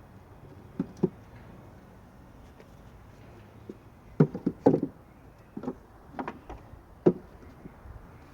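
Irregular hard knocks and clunks: two about a second in, a quick cluster of loud ones around the middle, a few lighter ones after, and a last sharp knock near the end.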